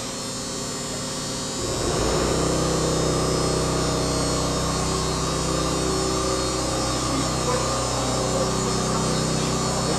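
Steady electrical and mechanical machinery hum with a low drone and several held tones, growing louder about two seconds in and then holding steady.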